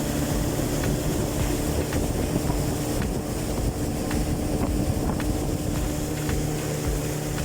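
Motorboat engine running steadily while under way, with wind buffeting the microphone.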